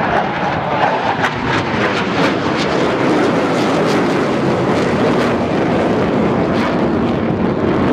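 McDonnell Douglas CF-18 Hornet fighter jet's twin General Electric F404 turbofan engines, a loud, steady jet noise as the jet climbs steeply.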